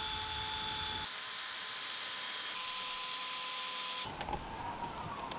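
Cordless drill running steadily with a high whine as it bores out the wooden wedge in a spindle end set into the chair seat. The whine steps up slightly in pitch about a second in and stops about four seconds in, followed by a few light clicks.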